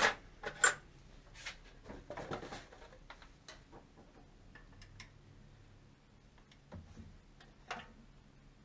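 Scattered small clicks and light scrapes of a small screwdriver working a new rubber gasket into the edge of a Honda D16 distributor, with a sharper click just after the start.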